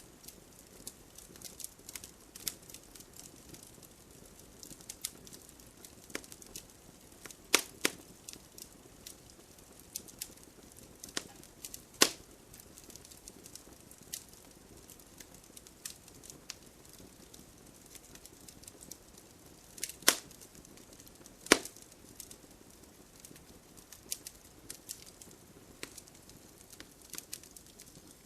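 Campfire crackling: burning wood giving scattered sharp pops and snaps over a faint steady hiss, with four louder pops among the smaller ones.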